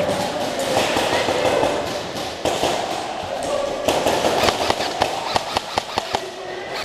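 Airsoft guns firing in an indoor arena: a string of sharp, irregularly spaced pops in the second half, over a steady noisy hiss of movement and room noise.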